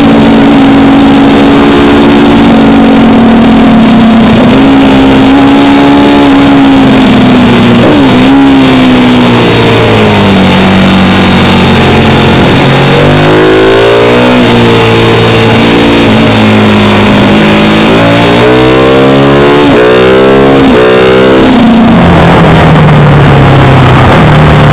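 Engine heard from an onboard camera while lapping a race circuit at speed, very loud with heavy wind roar. The engine note rises through the revs several times with drops between, as at gear changes, and falls to a lower pitch near the end under braking.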